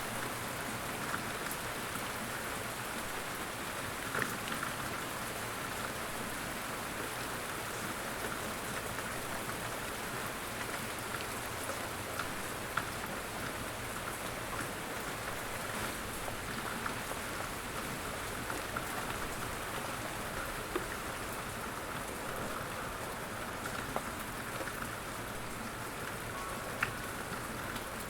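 Light rain falling steadily on a surface: an even hiss with the ticks of single drops scattered through it.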